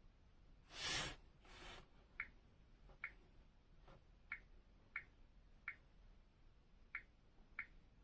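Two brief rustling noises about a second in, then seven short, sharp high clicks at uneven intervals.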